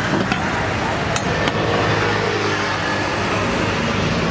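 Roadside traffic noise with a steady low engine hum, and a few light sharp clicks about a second in.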